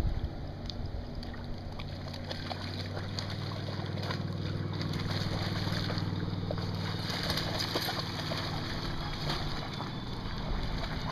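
A flat-coated retriever wading through shallow lake water, its legs splashing and sloshing, the splashes coming thickest past the middle. Under it runs a steady low hum.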